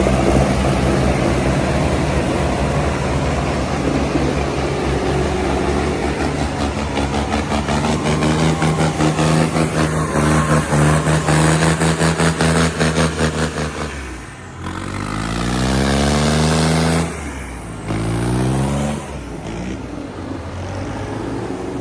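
Heavy diesel tractor engine working with a steady throbbing beat, then dropping back about two-thirds of the way in and revving up twice with a rising pitch.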